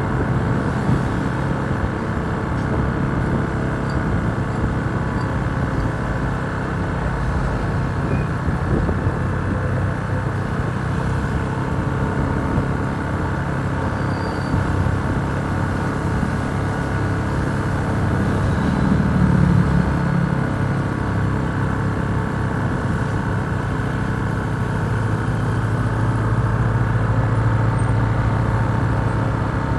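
Bus engine running, a steady drone that swells slightly about two-thirds of the way through.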